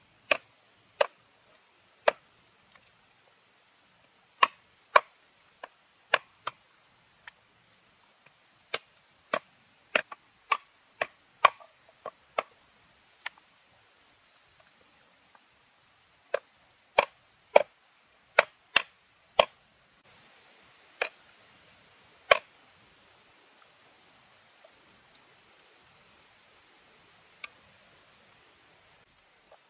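Large kitchen knife chopping through a raw chicken onto a thick round wooden chopping board: sharp, irregular blows in two long runs, then a single strike near the end.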